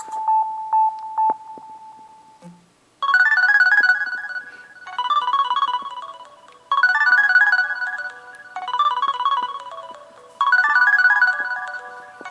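TracFone cell phone playing a polyphonic electronic ringtone: the previous tone fades out in the first second, and after a short pause a new melody starts about three seconds in, a short phrase of several notes repeating about every two seconds.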